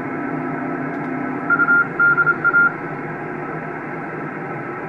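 Kenwood TS-990 transceiver's receiver hiss through its speaker, dull with no treble, while it tunes on the 2 m band. About one and a half seconds in, a quick string of Morse-like beeps at a single pitch sounds as the radio's settings are switched by the computer macro.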